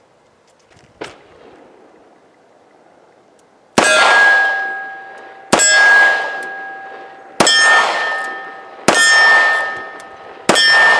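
Five shots from a Taurus 85 Ultra Lite .38 Special revolver, spaced about one and a half to two seconds apart, each followed by the ringing clang of the struck steel target. The first shot comes a little under four seconds in and the fifth near the end.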